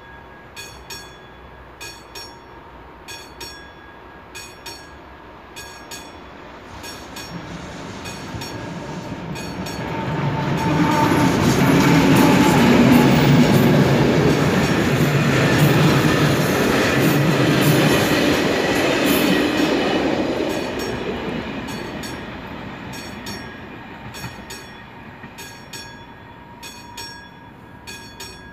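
AŽD 71 crossing signal's classic bell striking in steady, evenly spaced strokes, about one and a half a second, the level-crossing warning. A passenger train rolls through the crossing, building about a quarter of the way in, loudest in the middle, then fading away while the bell keeps ringing.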